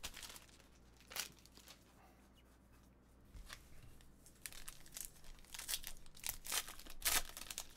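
Foil wrapper of a trading card pack being crinkled and torn open by hand, in a run of short crackling tears over the last few seconds, loudest near the end. A single sharp tap comes about a second in.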